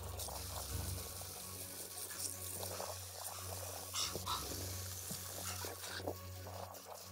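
Faint water splashing and trickling in irregular spurts, over a low steady hum.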